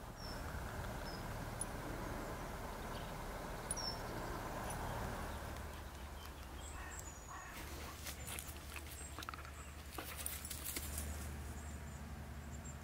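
A long-haired sighthound panting, over a low steady rumble, with a few faint high chirps and scattered rustling clicks in the second half.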